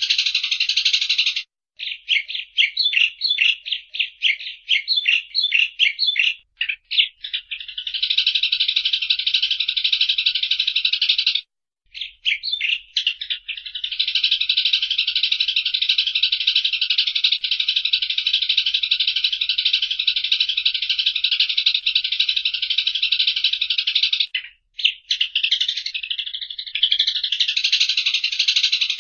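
Eurasian tree sparrow chattering: fast runs of harsh chirps, sometimes as quick separate notes and sometimes merging into long unbroken stretches, with a few brief breaks.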